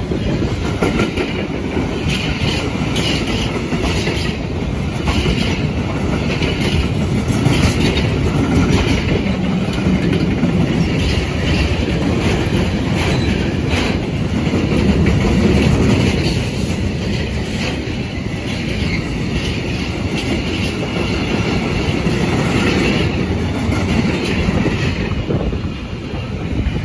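A long freight train of car-transporter and sliding-hood wagons rolling past close by. The wheels rumble and clatter steadily over the rail joints.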